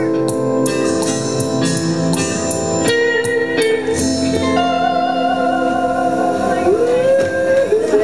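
Live band music: quickly repeated plucked string notes, about three a second, ring over sustained chords. About three seconds in, the plucking stops and the song settles into long held notes, with a sliding pitch coming in near the end.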